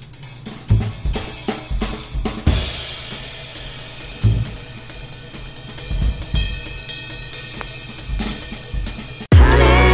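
Background music with a drum-kit beat: regular hi-hat ticks and bass-drum hits. Near the end it cuts suddenly to a much louder section of the music.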